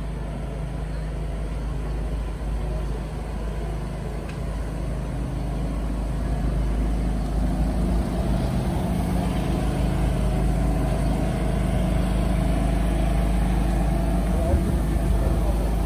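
A motor vehicle engine running steadily with a low hum, a little louder from about halfway through.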